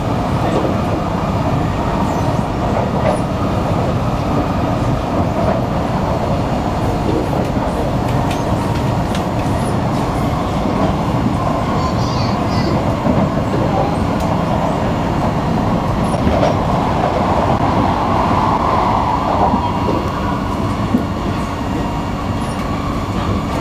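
Steady running noise of a Singapore MRT electric train heard from inside the carriage: a continuous rumble of wheels on the rails and running gear at speed.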